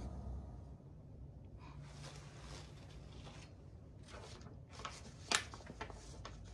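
Quiet room tone with faint scattered rustles and small knocks, and one sharp click a little past five seconds in.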